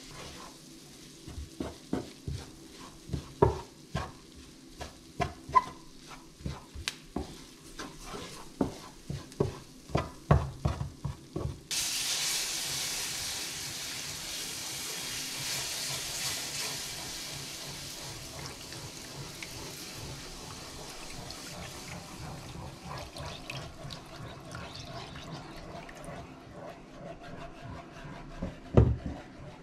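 A spoon knocking and scraping against a frying pan in quick, irregular clicks as flour is stirred into the pasta. About twelve seconds in, milk poured into the hot pan sets off a loud sizzling hiss that slowly dies down under stirring. There is one sharp knock near the end.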